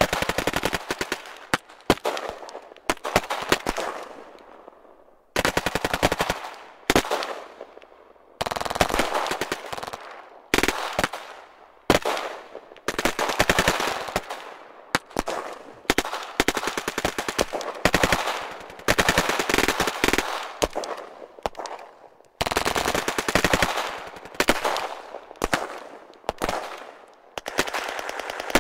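Firefight: machine guns firing burst after burst, mixed with rifle shots, some close and some distant. Each burst of rapid shots trails off in an echo before the next begins, with only brief lulls.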